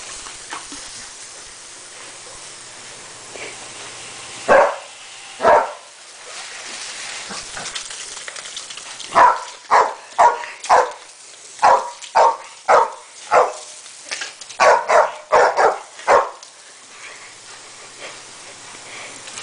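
Terrier barking: two sharp barks a second apart about four seconds in, then a quick run of some fifteen excited barks over about seven seconds.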